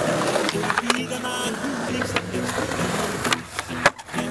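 A song with vocals plays over skateboard wheels rolling on concrete, with a few sharp board clacks; the loudest clack comes near the end.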